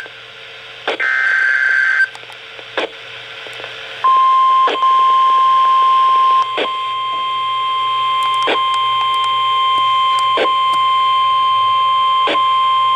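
NOAA Weather Radio emergency alert: the last burst of the SAME digital header, a second of warbling data tones, about a second in. About four seconds in, the steady single-pitch 1050 Hz warning alarm tone starts and holds, with a faint click about every two seconds.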